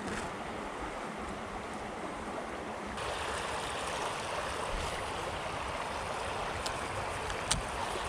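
Creek water running in a steady rushing hiss. It turns slightly louder and brighter about three seconds in, with a couple of faint clicks near the end.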